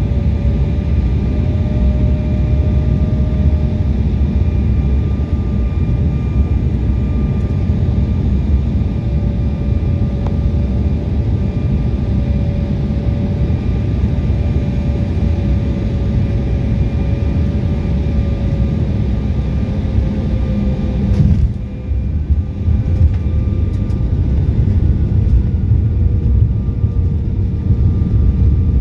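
Inside the cabin of an Embraer E175 on landing: steady rumble of its two GE CF34-8E turbofans and the airflow, with a fan whine slowly falling in pitch as the engines are throttled back. About 21 seconds in the noise breaks off sharply and dips for a moment as the jet touches down and the ground spoilers deploy, then the rolling rumble carries on.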